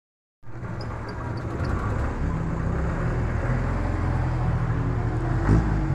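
Jeepney's diesel engine idling with a steady low hum.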